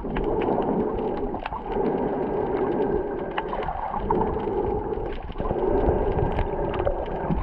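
Muffled underwater water noise recorded with the camera submerged: a dense rush that swells and dips every second or two, with scattered small clicks.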